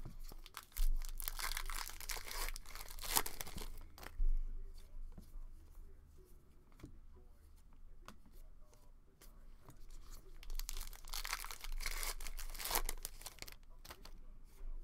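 2020 Topps Gypsy Queen trading-card pack wrappers being torn open and crinkled by hand, in two spells: one starting about a second in and another near the end, with quieter handling of cards in between.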